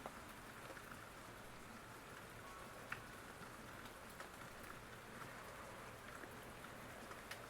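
Faint steady rain, with scattered single drops ticking through it; one sharper drop about three seconds in.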